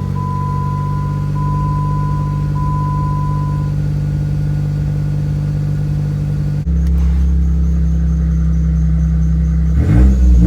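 A 2011 Jeep Wrangler Rubicon's 3.8-litre V6 idling right after its first start on a newly installed PCM, while the dashboard warning chime dings repeatedly for the first few seconds. About two-thirds of the way in, the idle steps up louder and deeper. The chime goes with the warning lights lit by the new, not yet synced PCM.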